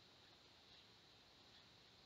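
Near silence: quiet room tone with a faint, steady high hiss.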